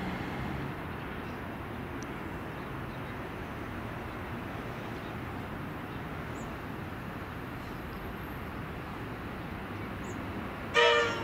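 Comeng electric train approaching with a steady running noise, then sounding one short horn toot near the end.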